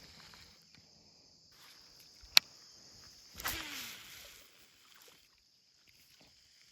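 Crickets or other insects buzzing steadily at a high pitch. About two seconds in there is a single sharp, loud click, and about a second later a brief rush of noise with a falling tone.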